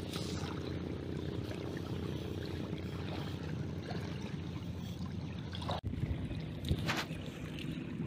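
Shallow water splashing and trickling around a wader's legs and hands, over a steady low rumble, with a couple of brief louder splashes in the second half.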